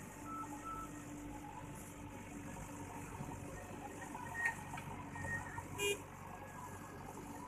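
JCB 3DX backhoe loader's diesel engine running steadily while the machine loads a tipper truck, with a brief sharp tone, like a short toot or squeal, near six seconds in.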